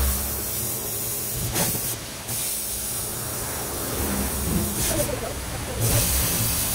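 Pressure washer jet spraying water in a continuous hiss, turning harsher briefly about two seconds in and again about five seconds in, over a steady low machine hum.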